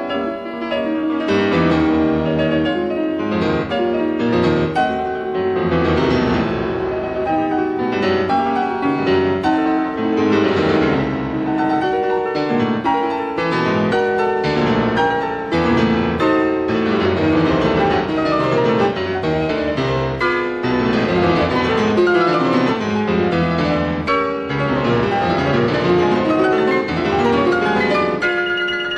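Solo piano playing classical music, a dense, continuous passage of moving figures over sustained low notes.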